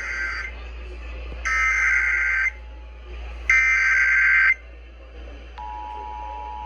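Emergency Alert System SAME header: three one-second bursts of warbling digital data tones, each louder than the last, encoding a flash flood warning. About a second after the last burst, the steady two-tone EAS attention signal begins.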